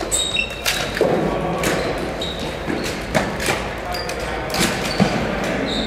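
Floorball play on an indoor court: sharp clicks of sticks hitting the plastic ball and short sneaker squeaks on the sports floor, with players calling out.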